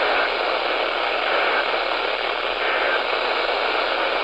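Steady radio static: a loud, even hiss from a radio receiver carrying no program audio.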